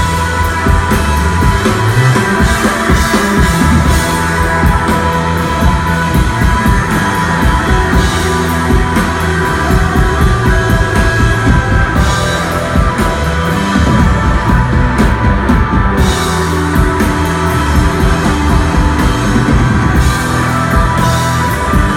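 Desert rock band playing live: sustained electric guitar over bass and a steady drum-kit beat with cymbals.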